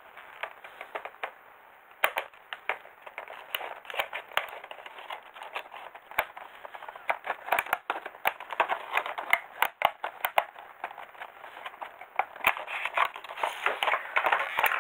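Scissors cutting into a thin clear plastic blister tray to free a kit part: a run of sharp snips and crackling of the plastic, denser and louder in the second half.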